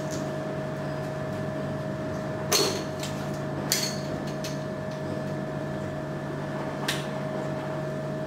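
A steady, even electrical or room hum with three short knocks or clicks: about two and a half seconds in, again about a second later, and once more near the end.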